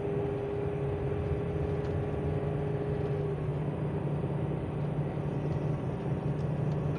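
Engine and road noise of a Coachmen Leprechaun Class C motorhome under way, heard inside the cab as a steady low rumble. A steady hum runs over it and stops about three and a half seconds in.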